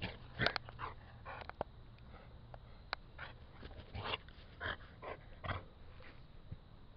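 A dog making a string of short, irregular sounds, loudest near the start and again about four to five and a half seconds in, mixed with a few sharp clicks.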